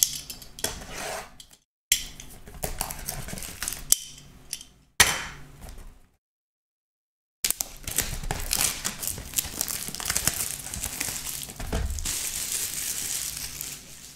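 Cellophane shrink-wrap being slit with a box cutter and torn off a cardboard trading-card box, crinkling and crackling in several stretches that stop abruptly between them.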